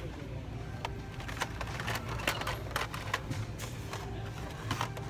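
Hot Wheels blister-card packages clacking against each other and the metal peg hooks as they are flipped through by hand: a run of irregular sharp clicks over a low steady hum.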